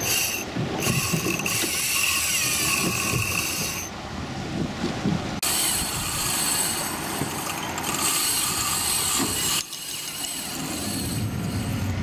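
Large spinning reel ratcheting under the strain of a hooked tarpon, its drag and gears buzzing in long stretches that stop abruptly about four and ten seconds in.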